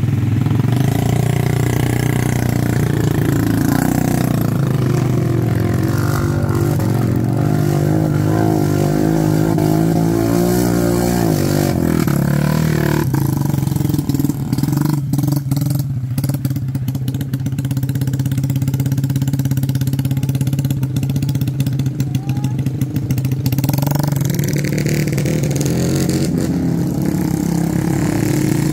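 Small motorcycle engines revving and labouring as the bikes, loaded with sacks of unhulled rice, are worked through deep mud, over a steady engine drone. A run of clicks and knocks comes in the middle.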